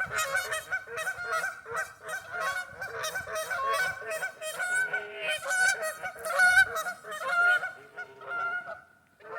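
A flock of geese honking, many calls overlapping, thinning out to a few calls near the end.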